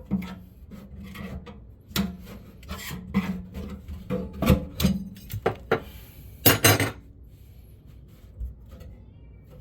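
Irregular metallic knocks, clinks and scraping as the garbage disposal's sink mounting ring and flange hardware are worked loose, with a loud cluster of clatter about six and a half seconds in.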